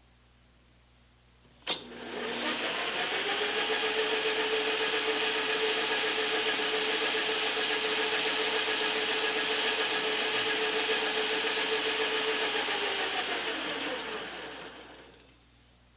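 Metal lathe switched on with a click, spinning up, running steadily with a hum and hiss while taking a light turning cut on a steel part, then switched off and winding down near the end.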